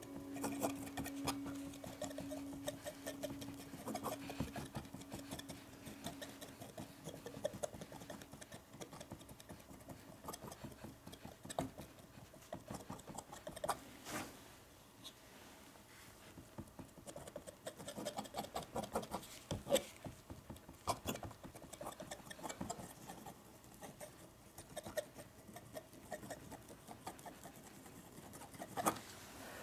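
Palette knife dabbing and scraping thick oil paint onto a canvas board: faint, irregular small taps and scrapes, with a few sharper clicks.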